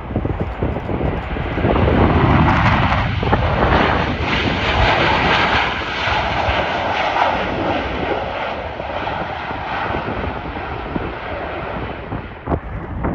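Jet airliner's engines roaring as the plane passes, swelling over the first couple of seconds, loudest in the middle, then slowly fading, with a thin steady whine over the roar.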